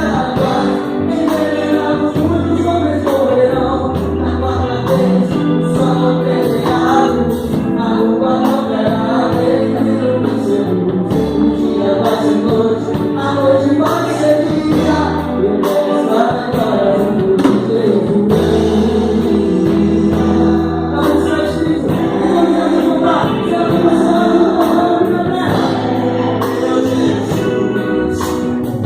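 Gospel song played by a band, with voices singing together over a steady bass and beat.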